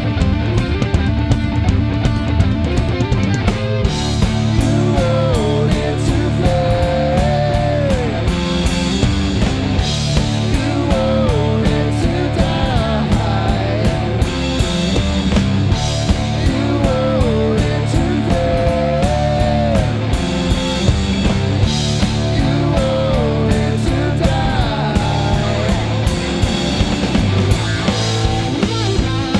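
Live rock band playing: electric guitars, electric bass and a drum kit, with a lead line of sliding notes that comes back every few seconds.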